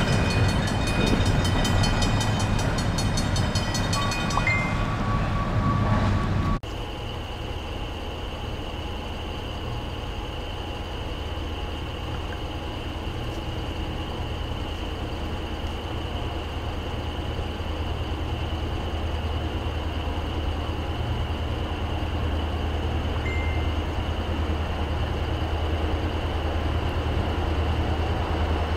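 Grade crossing bell ringing over the rumble of passing diesel locomotives, cut off abruptly about six and a half seconds in. Then a steady low diesel rumble from the approaching freight train, slowly growing louder.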